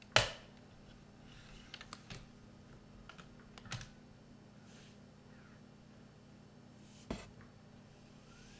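Scattered sharp clicks and knocks over a faint steady hum, the loudest just after the start, a few small ones around two and four seconds in, and another about seven seconds in.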